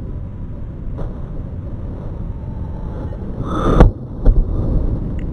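Forehand tennis stroke played back in slow motion: under a low rumble, the racket's swish rises and the ball strike comes as a deep, drawn-out thud a little under 4 seconds in, followed by a few fainter knocks.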